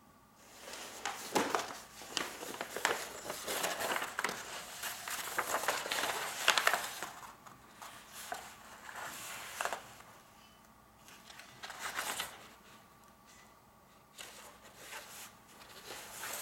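A large rolled sheet of mounting paper rustling and crinkling as it is unrolled and pressed flat by hand. The crackling runs almost continuously for the first ten seconds or so, then comes back in two shorter bursts near the end.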